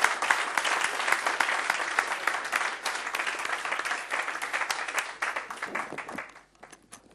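Audience applauding, the clapping fading away after about five seconds.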